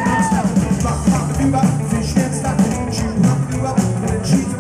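Live rockabilly band playing an instrumental stretch between sung lines: electric guitar and drum kit over a bouncing bass line. A sung note trails off just at the start.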